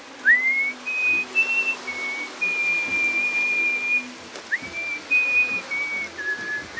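Music: a whistled melody of held notes, two of them sliding up into the note, over soft low accompaniment.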